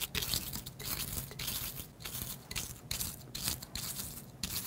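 Cheerios being crushed to a powder inside a zip-top plastic bag under a plastic flask pressed and rolled over it: repeated gritty scraping crunches mixed with plastic crinkling.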